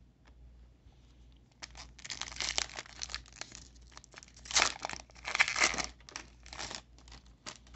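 Plastic trading-card pack wrapper crinkling and tearing open in a run of irregular rustles, starting about a second and a half in and loudest a little past the middle.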